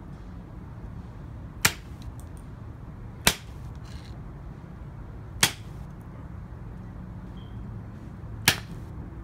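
Kitchen knife chopping down through pumpkin pieces onto concrete: four sharp knocks, spaced a second or more apart, the last the loudest.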